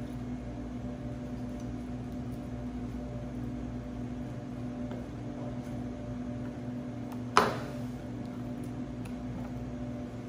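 Steady mechanical hum of kitchen equipment with a few fixed tones, and one sharp knock about seven seconds in, a chef's knife being set down on a plastic cutting board.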